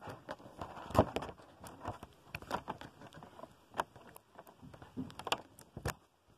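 Toy packaging being opened by hand: rustling and crackling, with many sharp clicks and snaps, the loudest about a second in.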